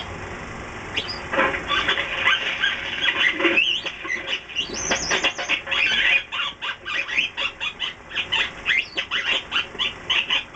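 A small monkey chattering and squealing in quick, high, rising squeaks, many a second, starting about a second in.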